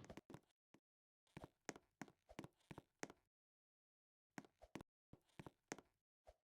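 Faint, irregular clicks and taps in quick clusters, with short silent gaps between them. They sound like small hard objects being handled.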